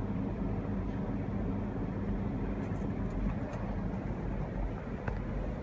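Steady low rumble with a faint hum: background room noise, with a faint click about five seconds in.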